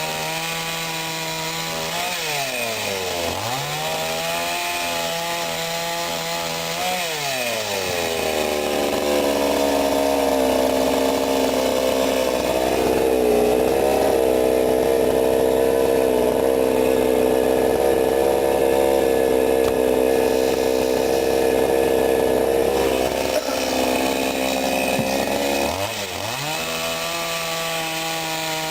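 Sadko GCS 510E two-stroke petrol chainsaw running at full throttle, with a brief dip in revs about three seconds in. From about eight seconds the engine is pulled down to a lower, louder note as the chain cuts through wood, then it revs freely again near the end.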